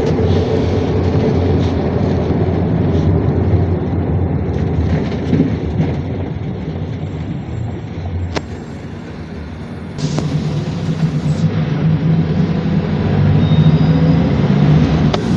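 PAZ Vector Next city bus under way, heard from inside the cabin: engine running with a steady low drone over road noise. The engine eases off to a quieter level about eight seconds in, then picks up again at about ten seconds with a brief hiss.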